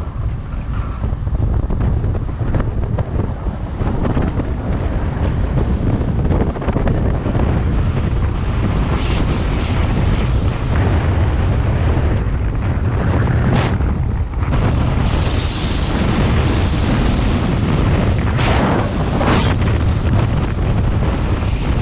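Heavy wind buffeting on the microphone of a road bike descending at speed: a loud, steady rumble with gusts that swell and fade several times.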